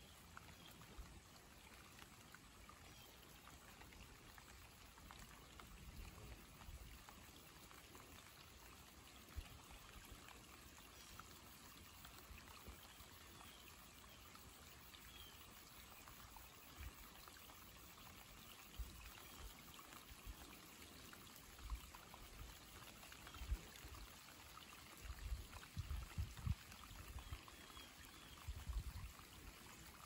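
Rain falling on a lake's surface and the plants around it: a faint, steady hiss of many small drops. Low thumps come now and then, more often near the end.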